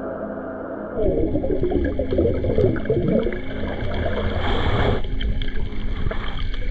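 Underwater water noise on a diving camera: a low rushing rumble with gurgling bubbles as a snorkeler swims down to a mud crab. It starts abruptly about a second in, after a moment of soft background music.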